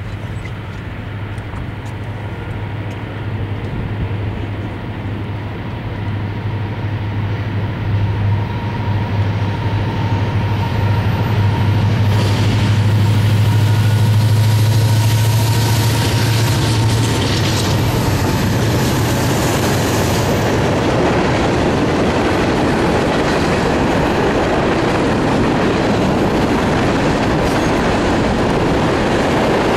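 A Norfolk Southern freight train passing: the diesel locomotives' low engine drone builds to its loudest about halfway and fades, then the freight cars roll by with a steady clatter of wheels on rail.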